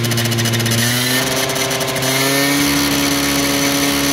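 Freshly rebuilt Gilera Runner two-stroke scooter engine running on test, a steady buzzing note whose pitch climbs slightly after about a second.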